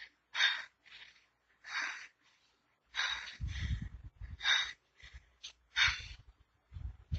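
A person's short, breathy gasps and coughs, about ten in quick succession, with low rumbling sounds under them from about three and a half seconds in.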